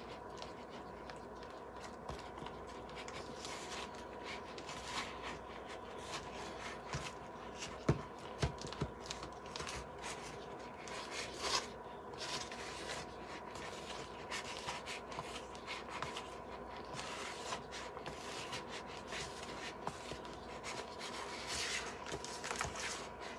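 A spatula stirring and scraping thick tinted spackle around a plastic bowl: irregular soft scraping strokes, with one sharper knock about eight seconds in.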